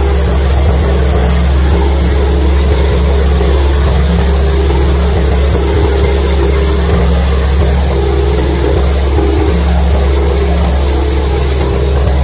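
Passenger ferry's engines running at a steady cruising drone, with water rushing along the hull.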